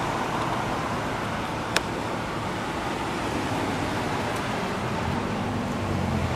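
Steady rushing background noise with one sharp click a little under two seconds in.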